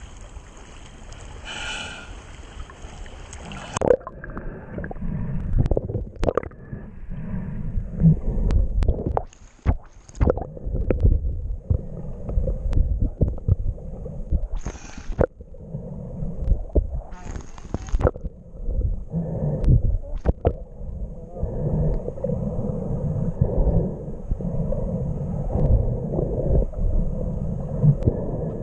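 Water splashing at the surface against a camera, then, about four seconds in, the muffled low rumble and gurgling of water around a camera held underwater, with scattered sharp clicks and a few short hisses.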